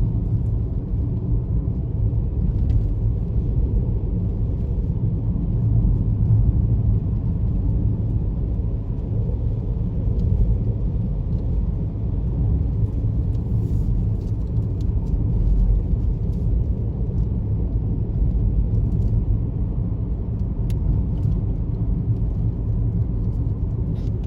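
Steady low rumble of a moving car heard from inside the cabin: engine and tyre noise on a wet, snowy road.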